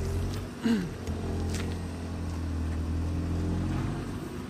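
Audi TT RS's turbocharged five-cylinder engine running at low, steady revs as the car crawls up a rutted dirt slope, with one quick dip in pitch about a second in.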